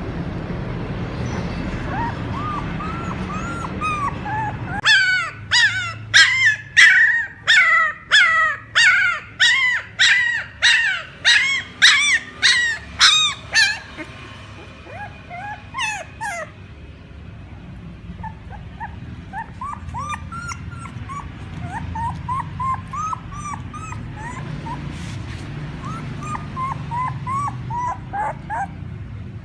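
Young puppies whimpering and crying, the calls puppies make for their mother. From about five seconds in a single loud, high cry repeats steadily, roughly two a second, for about nine seconds, then softer overlapping whimpers carry on.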